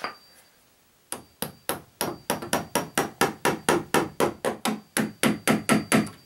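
Claw hammer tapping, driving a sliding door's floor-roller concrete anchor down into its hole in the concrete floor. About two dozen quick, even blows, four or five a second, start about a second in.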